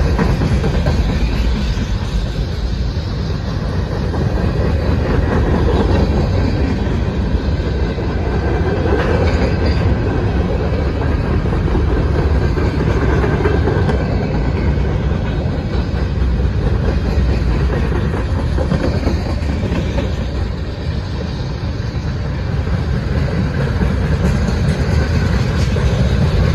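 Freight cars rolling past on the near track: a steady, heavy rumble of steel wheels on rail.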